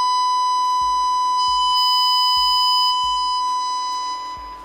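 Steady high-pitched sine test tone played through a 15-inch loudspeaker by a PAM8403 class-D amplifier module, carrying strong overtones from the amplifier being driven into distortion. The level dips slightly near the end.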